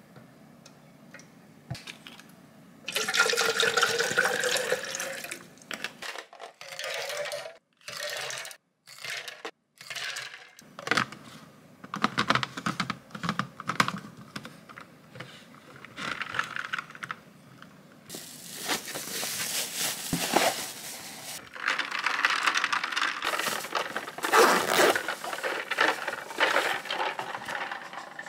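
Liquid poured into a plastic tumbler, a splashing pour whose pitch rises slightly as the tumbler fills. After it come clicks and knocks as the tumbler and its lid are handled, and later more stretches of pouring or splashing noise.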